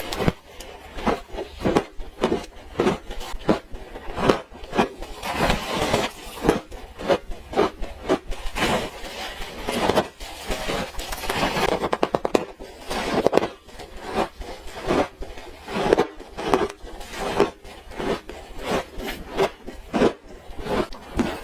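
Close-miked crunching and chewing of frozen orange ice, a steady run of crisp crunches a few times a second with a quick rattling burst about halfway through.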